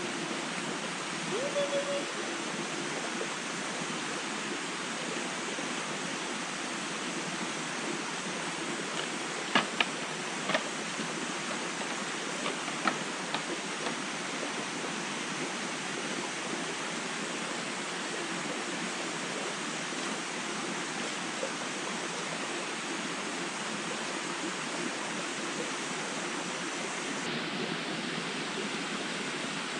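Steady rush of flowing water, with a few sharp clicks about ten and thirteen seconds in.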